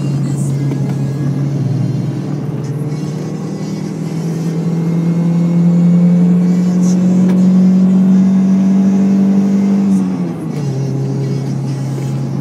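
Car engine heard from inside the cabin, its note climbing steadily for several seconds as the revs rise, then dropping sharply near the end as the revs fall back.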